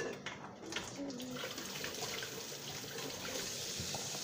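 Kitchen tap running into a sink, the steady rush of water starting about a second in, with a few light handling clicks before it.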